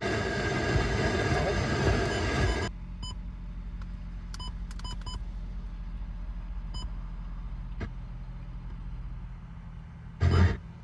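2016 Nissan Sentra's engine starting, loud for the first couple of seconds, then settling into a steady idle hum. Several short electronic beeps sound over the idle, and there is a brief loud burst near the end.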